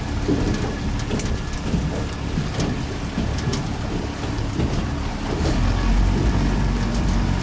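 Pontoon boat's outboard motor running steadily under way, with water rushing past the hull and wind on the microphone; the low rumble grows louder about five and a half seconds in.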